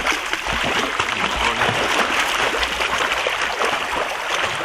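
Swimming-pool water splashing and lapping as a person wades waist-deep and moves his hands through it.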